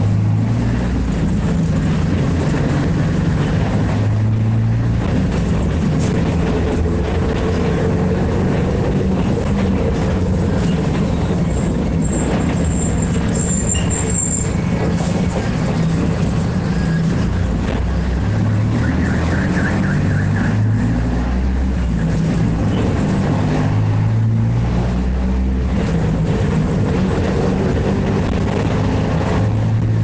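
Diesel engine of a Mercedes-Benz bus with an Ayco Zafiro body, running steadily. Its low note rises and falls slightly a few times.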